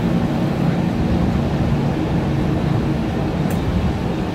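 Steady running noise of a steam-hauled heritage passenger carriage rolling along the track, heard from inside the carriage: an even low rumble with no break.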